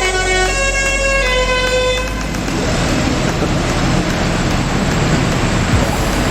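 Bus telolet horn playing its 'basuri' multi-note tune, the pitch stepping about every half second. It stops about two seconds in and gives way to a steady rushing hiss over a low rumble.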